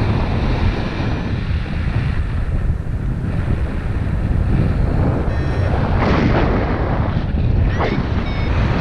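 Wind rushing over the camera's microphone on a paraglider in flight: a loud, steady buffeting rumble.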